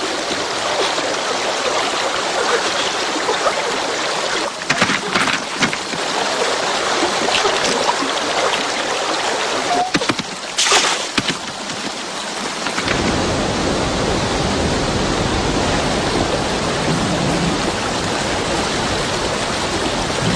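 Steady rushing of running water, with a few brief knocks and splashes in the first half; about thirteen seconds in the sound changes and a low rumble joins it.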